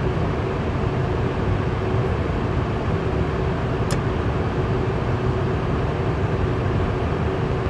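KeepRite natural gas furnace running steadily through an ignition attempt: a fan rushing with a steady hum, and a small click about four seconds in. The burner does not light; the furnace flags fail to ignite.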